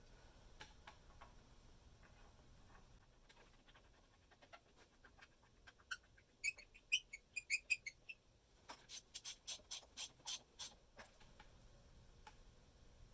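Steel studs and hand tools being handled while the studs are reinstalled in the steering knuckle: a cluster of light metallic clinks with a short ring about six seconds in, then a run of about ten quick, sharp clicks at roughly four a second.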